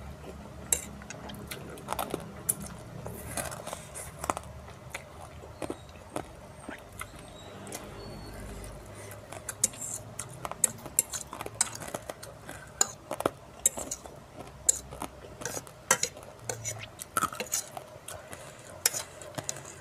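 Metal fork clinking and scraping against a ceramic plate as it twirls instant fried noodles, with chewing in between. The clinks come thicker in the second half.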